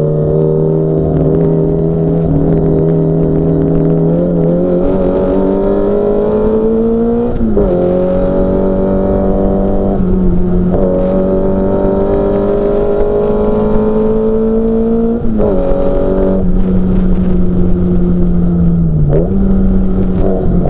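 Classic Mini Cooper S race car's four-cylinder A-series engine running hard under racing load. Its pitch climbs slowly as it pulls, then drops suddenly several times as it is shifted through the gears.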